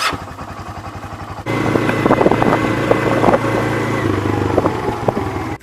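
Small vehicle engine running with rapid even firing pulses, then jumping to a louder, busier run under throttle about a second and a half in, with knocks and rattles over it. It cuts off suddenly at the end.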